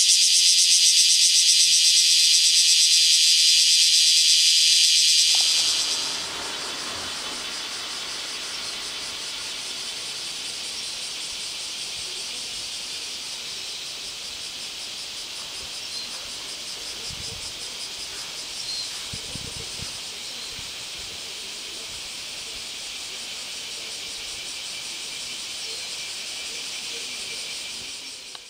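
Bear cicadas (Cryptotympana facialis) singing their shawa-shawa call, a high, fast-pulsing buzz. The nearest, loudest one stops about five seconds in, leaving a fainter chorus going on steadily.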